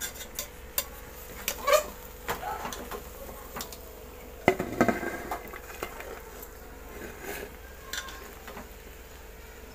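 A spoon scraping and clinking in a metal pot as cooked rice biryani is scooped out and served onto a plate, in scattered strokes, with the heaviest scraping about halfway through.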